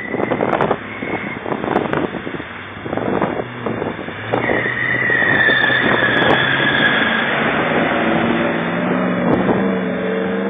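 Land Rover Defender 90 driving hard through a deep, boggy puddle. For the first few seconds water is splashing and sloshing with the engine under load. Then a steady engine note takes over, rising in pitch near the end as the vehicle pulls away up the track.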